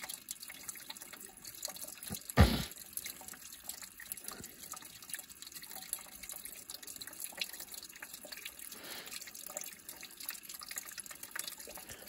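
Antifreeze coolant streaming and splattering from the tractor's heater lines into a plastic 5-gallon bucket, a steady trickle with small drips, draining slowly and running everywhere. One sharp thump about two and a half seconds in.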